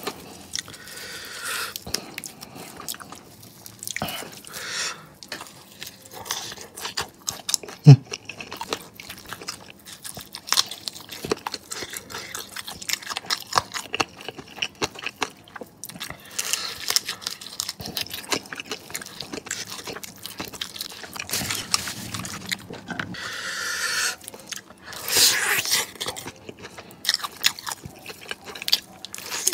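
Close-up crunching and chewing of crispy fried KFC chicken wings, a dense run of small, irregular crackling crunches, with one loud sharp knock about eight seconds in.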